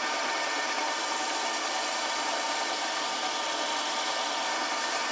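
Benchtop metal lathe turning a mild-steel bar at 250 RPM under power feed, a carbide insert taking an oiled finishing cut: a steady hiss of the cut, with faint steady tones from the machine running underneath.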